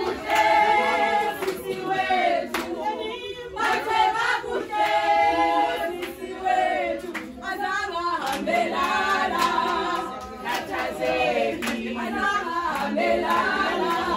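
A group of voices singing together without instruments, with a few hand claps among them.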